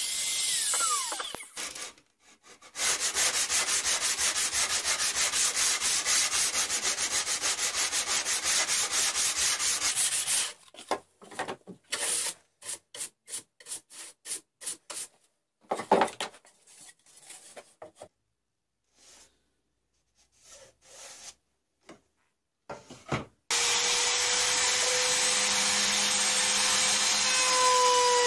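A trim router spins down and stops. Then come fast, even rubbing strokes over a plywood board, and a bench brush sweeping the dust off it in separate strokes. About 23 seconds in, the trim router starts again and runs steadily.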